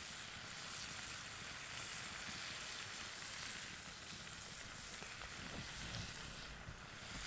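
Steak frying in a cast-iron skillet over a campfire: a steady sizzle.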